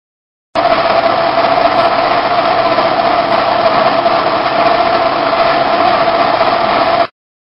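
Wheel lathe turning a locomotive's steel wheel: a loud, steady machine noise with a strong whine. It starts abruptly about half a second in and cuts off abruptly near the end.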